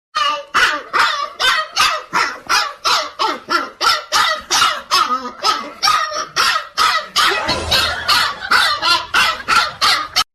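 A dog barking over and over, loud and rapid, about three barks a second without a break.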